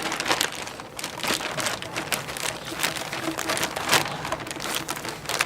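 Plastic packaging crinkling and rustling as bagged silicone hoses are handled and unwrapped, with many irregular sharp crackles.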